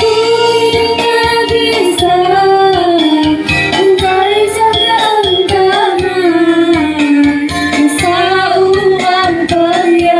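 A young female voice singing a pop ballad over an instrumental backing track, the sung melody gliding and held on long notes.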